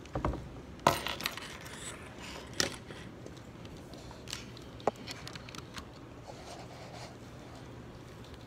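Scattered sharp clicks and knocks, the loudest about a second in and a few more over the next four seconds, over a faint steady low hum.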